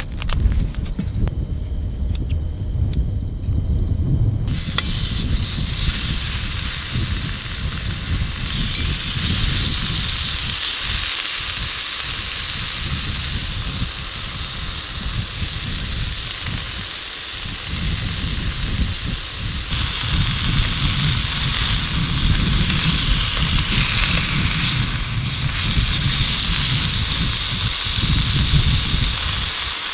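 Beef sizzling on the hot grill plate of an electric multi-cooker. The frying hiss starts about four seconds in, when the meat goes on, and continues steadily.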